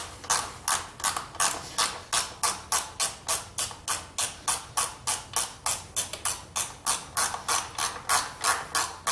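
Ratchet wrench clicking steadily, about three clicks a second, as a starter mounting bolt is backed out with a 3/8 socket.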